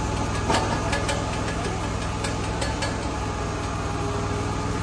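A motor vehicle engine idling steadily, with a few sharp clicks or knocks over it, the loudest about half a second in.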